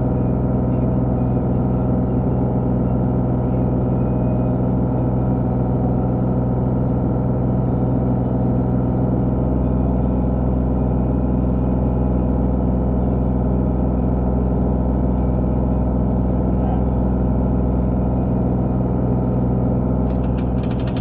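Skid steer engine running steadily at a constant speed. About a second before the end a fast rattle joins in.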